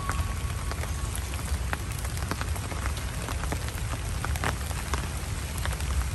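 Heavy rain pouring down: a steady hiss dotted with many sharp drop ticks, over a low rumble.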